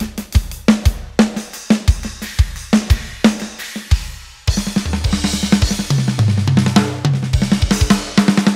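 Sampled acoustic drum kit from the Hertz Drums White Pack virtual drum plugin playing a groove, kick and snare hitting about twice a second. About four and a half seconds in it changes to a faster, denser metal groove with rapid kick strokes and sustained low notes underneath.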